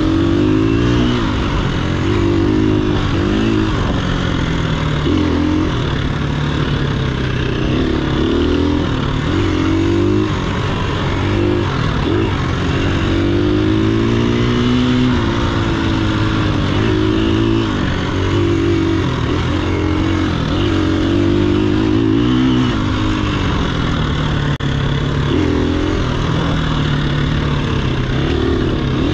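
Dirt bike engine revving up and down again and again as the throttle is opened and closed, its pitch rising and falling every second or two, over a steady rushing noise.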